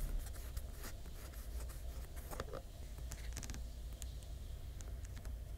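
Fingers handling an opened Samsung Galaxy S24's frame and vapor chamber: faint rubbing, scratching and small ticks, with a short rippling scrape about halfway through, over a low steady hum.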